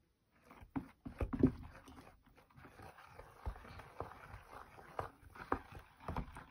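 A spoon stirring zucchini pancake batter in a metal bowl as milk is added: wet squelching and sloshing, with irregular knocks of the spoon against the bowl.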